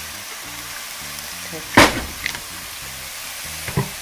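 Vegetables sizzling in hot oil in a frying pan, with a sharp knock of the wooden spoon against the pan about two seconds in and a smaller clack near the end, over background music.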